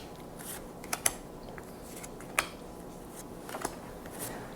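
Pokémon trading cards being handled, with a few light clicks and quiet rustles of card and plastic, about a second in, near the middle, and again later.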